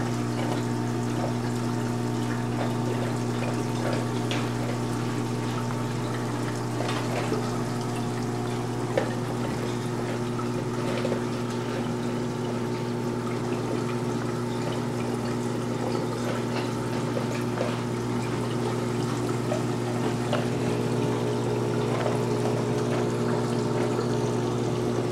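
Aquarium pump and filter running: a steady low hum with water trickling and splashing over it, and small drips and ticks now and then.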